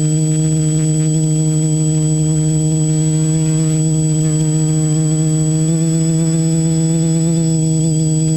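Small multirotor drone's motors and propellers humming steadily from close by, a low buzz with a thin high whine above it; the pitch steps up slightly about six seconds in.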